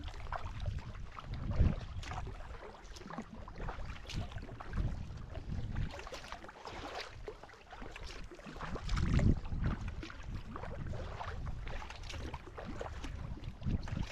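Sea kayak being paddled: repeated splashes of the paddle blades, roughly one a second, with water dripping and lapping. Low rumbles of wind on the microphone, strongest about nine seconds in.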